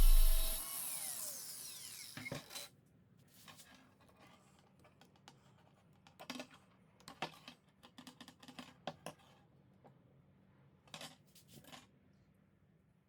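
A small electric power-tool motor switched off and spinning down with a falling whine over the first two seconds, then scattered light clicks and taps of parts being handled.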